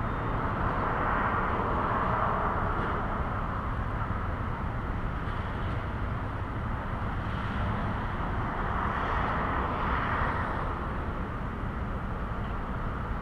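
Distant road traffic: a steady rumble that swells twice as vehicles go by, once near the start and again around ten seconds in.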